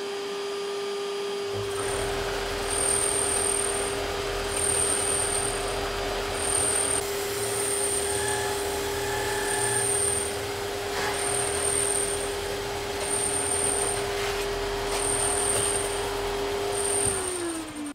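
Sander thicknesser with its dust extraction running at a steady whine while an undressed ash bow laminate on a tapered sledge is fed slowly under the sanding drum. A low grinding rumble from the sanding starts about a second and a half in and lasts until near the end, when the whine winds down.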